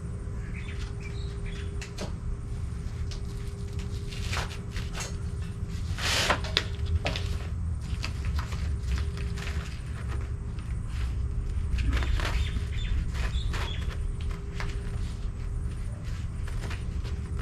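Scattered clicks, knocks and rustles of lawnmower parts being handled and clipped together, with a louder rustling knock about six seconds in, over a steady low hum.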